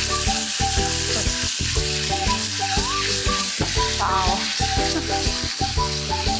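Sauce of garlic, dark soy sauce and tomato ketchup sizzling hard in a hot frying pan over a gas flame as water is poured in and it is stirred with a spatula. Background music plays underneath.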